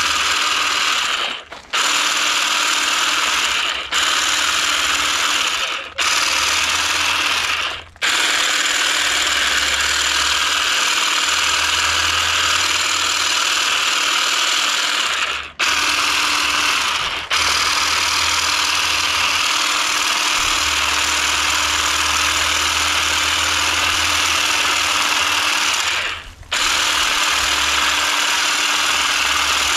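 Ryobi electric hedge shears running with a steady buzz as they clip the candle tips off a mugo pine. The motor stops for a moment several times and starts again, with a long unbroken run in the middle.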